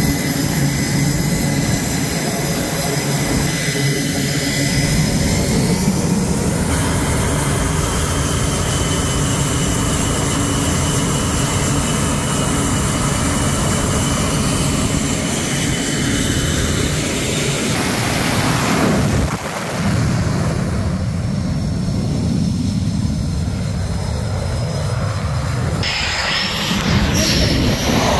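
Jet engines of F/A-18 Super Hornet fighters running on an aircraft carrier flight deck: a loud, steady roar with a high whine on top. The whine shifts at several points, and there is a brief drop about 19 seconds in.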